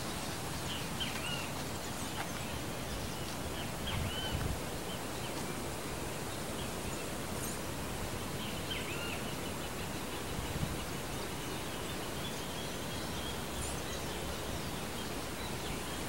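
Steady outdoor ambient hiss with faint, scattered calls of small birds throughout, and a couple of soft low bumps around four and ten and a half seconds in.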